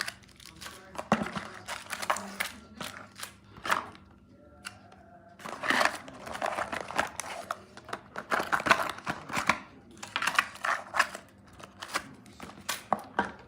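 Irregular rustling, crinkling and small clicks of packaging being handled and opened.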